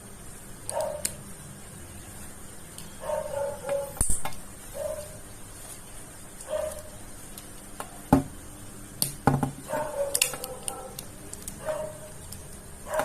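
A few sharp clicks from a crimping tool and RJ45 connector being handled and squeezed onto a UTP cable, with short animal calls repeating in the background every second or two.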